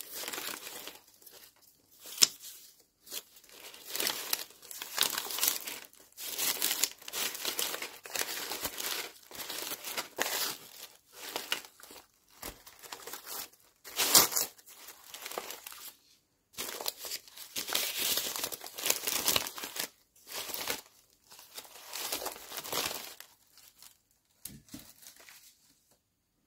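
Scraps of collage paper rustling and crinkling as hands pick through a basket of them and lay pieces out, in irregular bursts with short pauses. There are sharper, louder crackles about two seconds in and near the middle.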